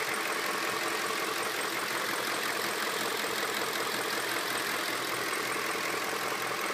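BMW E39 M5's 4.9-litre V8 engine idling steadily, with the vibration and noise that the owner is trying to track down.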